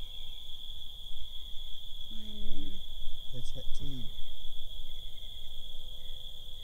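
Steady high-pitched chorus of crickets that never lets up, with brief low voices about two to four seconds in.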